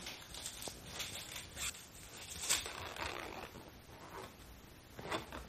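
Scattered soft rustling and scraping of cats moving about on a tatami mat with a cat-teaser toy, with a sharper scrape about two and a half seconds in and a few more near the end.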